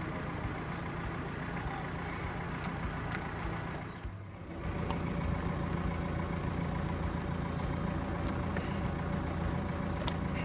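Tractor engine idling steadily. The sound briefly drops away about four seconds in, then comes back slightly louder.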